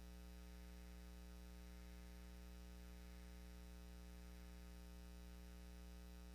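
Near silence with a faint, steady electrical hum that holds one unchanging tone with many even overtones.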